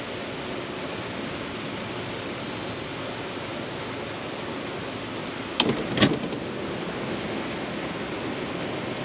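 Steady rushing noise of river water flowing below the dam gates. A little past the middle there are two sharp knocks about half a second apart.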